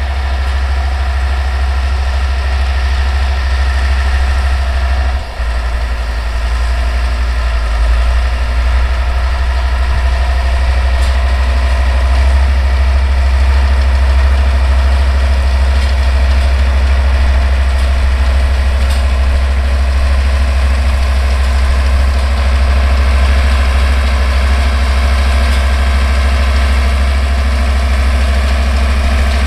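Older Deutz tractor's diesel engine running steadily while driving a New Holland 644 round baler, the baler's machinery running along with it; the sound dips briefly about five seconds in.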